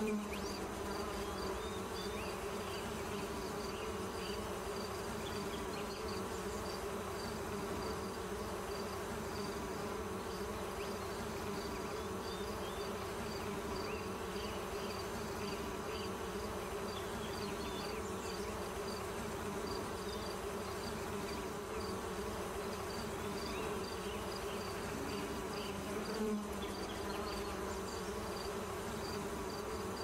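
Steady insect buzzing, like bees, with a quick, even series of high chirps over it and scattered fainter high calls.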